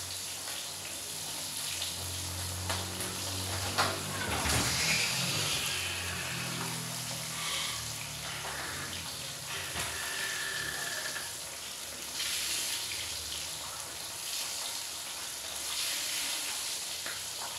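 Pot of sinigang soup boiling under its steel lid on a gas burner, a steady bubbling hiss. A low droning hum runs under it for the first several seconds.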